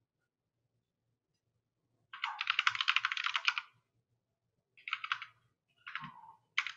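Typing on a computer keyboard: a quick run of keystrokes starting about two seconds in, then a few shorter bursts of key presses.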